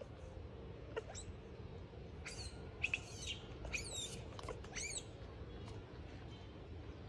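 Newborn macaque giving a run of short, high-pitched squeals with quick up-and-down pitch sweeps, lasting about three seconds from two seconds in, with a couple of sharp clicks before.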